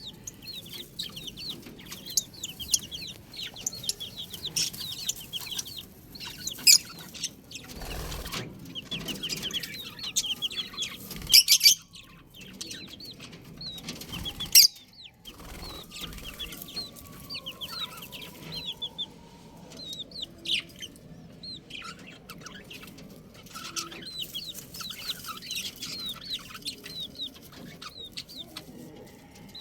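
A group of baby chicks peeping: many short, high chirps that fall in pitch, overlapping almost without a break. A few louder sudden knocks or flutters cut in about eight, eleven and fourteen seconds in.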